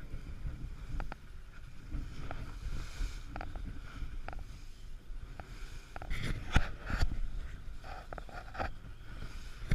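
Aluminium boat hull slamming into waves and throwing spray as it runs through a choppy sea, over a steady low rumble. The hardest, most frequent slams come about six to seven seconds in.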